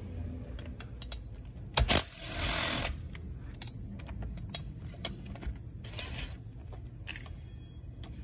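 Small metal clicks and taps from a long screwdriver working screws on a chainsaw's cylinder area, with a sharp clack about two seconds in followed by a scrape lasting about a second.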